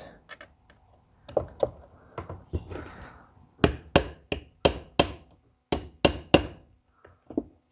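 Hammer striking metal, trying to drive out a roll pin in a tractor diesel injection pump. A few scattered light knocks come first, then about halfway in a quick run of about eight sharp blows, roughly three a second, and two lighter taps near the end.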